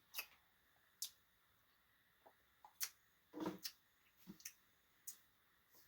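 Faint eating sounds from someone tasting an ice-cream Blizzard: scattered lip smacks and mouth clicks, a few single sharp clicks spread through the moment, with a soft smacking sound about three and a half seconds in.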